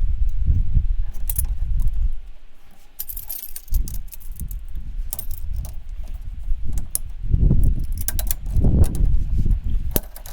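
VW Beetle on the move: a low rumble that dips briefly about three seconds in, with many light rattles and clicks over it.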